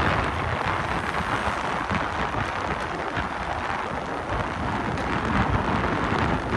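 Wind rushing and buffeting over the microphone on an electric bike riding at speed, a steady noise with a heavy low rumble.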